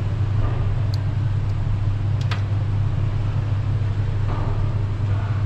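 Steady low rumble, with a couple of light sharp clicks about one and two seconds in.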